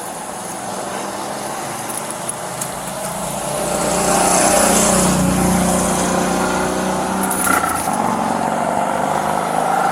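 A motor vehicle's engine running close by, with a steady hum that grows louder about four seconds in and then holds.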